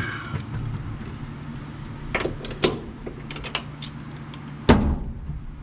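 Work on a truck's door hinge: a few scattered sharp metallic clicks, then one heavy clunk about three-quarters of the way through.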